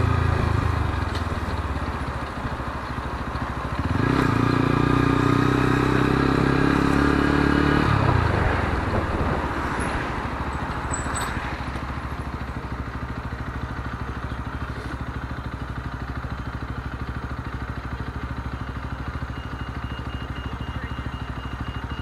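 Lexmoto ZSX-F 125's single-cylinder four-stroke engine: it eases off at first, pulls harder for a few seconds about four seconds in, then drops back and settles into a steady idle while stopped at a red light.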